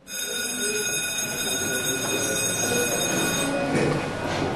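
A school bell rings with a steady, shrill, many-toned sound and stops about three and a half seconds in, calling students into class. Under it, a room of students moves about and chatters.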